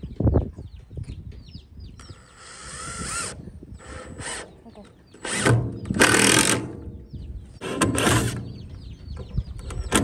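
Cordless drill run in three short bursts, about two, five and a half and eight seconds in, driving screws into a wooden board frame. Baby chicks peep throughout.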